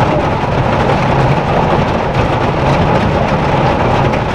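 Steady heavy rain on the roof and windows of a van, heard from inside the van as a dense, even hiss.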